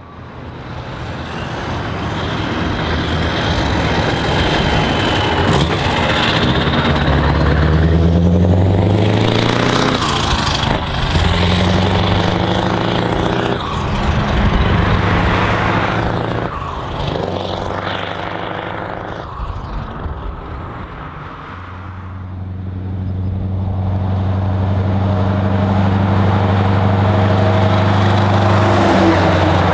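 Scania heavy trucks' diesel engines pulling away, the engine pitch climbing and dropping back with each gear change. Later a truck approaches at a steady engine speed, growing louder.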